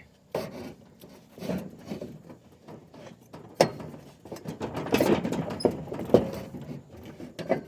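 Metal hand tools clanking, knocking and scraping on a riding mower's blade assembly: irregular sharp knocks with rubbing and rattling between them, busiest about halfway through.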